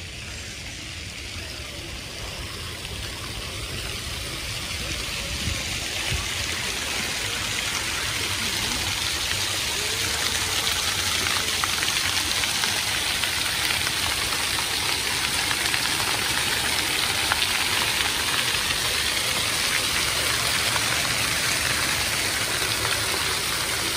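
Water jets of a floor-level splash fountain falling onto paving and drain grates: a steady hiss of splashing water that grows louder over the first ten seconds or so, then holds.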